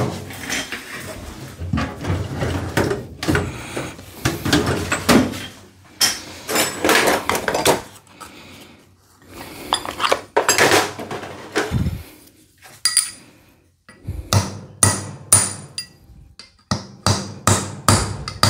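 Hammer tapping on the steel rock shaft of a John Deere 3038e rock shaft valve manifold to drive it back down into a housing where it is stuck hard: sharp metallic taps with a short ring, scattered at first, then a quick run of about two taps a second near the end.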